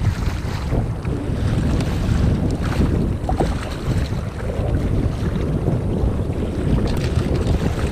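Wind buffeting the microphone over choppy water slapping and splashing against a kayak's hull.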